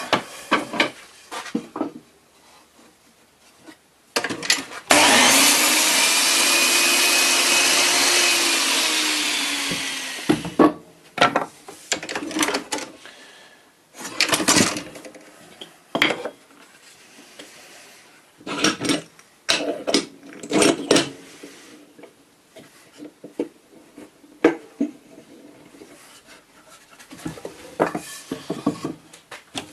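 A power tool runs for about five seconds, starting about five seconds in, its pitch sagging slightly before it stops. Before and after it come scattered knocks and scrapes of wood being handled and worked.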